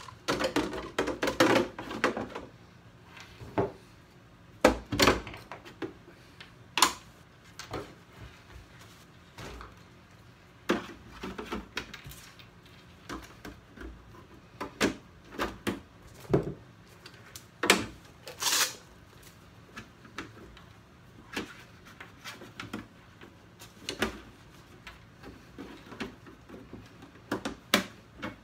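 Hand tools being put back one by one into a plastic Festool TB-2 open-top toolbox with a wooden insert: scattered knocks, clacks and scrapes of tools against plastic and wood every second or two. There is a busy patch of rattling in the first two seconds and a longer, sharper scrape about two-thirds of the way through.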